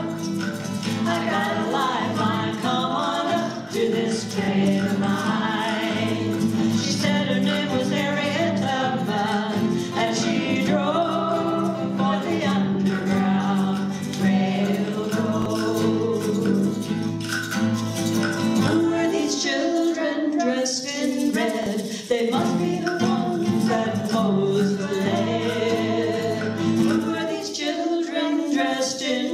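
Women's vocal group singing a folk song in harmony, accompanied by strummed acoustic guitars. Near the end the accompaniment drops away and the voices carry on almost unaccompanied.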